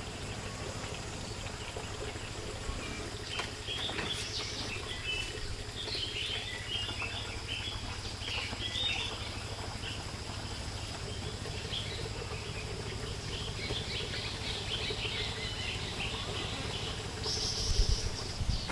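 Birds chirping and twittering in short scattered calls over a steady high insect drone, with a brief rustle near the end.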